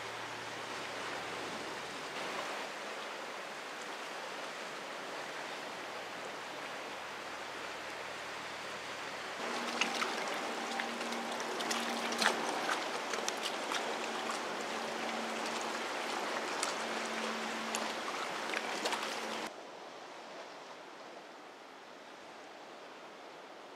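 Sea surf washing against a rocky shore, a steady rushing noise. About nine seconds in it turns louder for about ten seconds, with sharp clicks and a low hum that comes and goes, then drops suddenly to a quieter wash.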